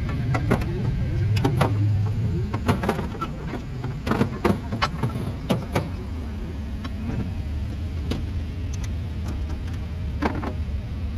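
Metal clanks and knocks of cast suitcase weights being handled on a pulling tractor's front weight bracket, several sharp strikes through the middle and one more near the end. A steady low engine rumble runs underneath.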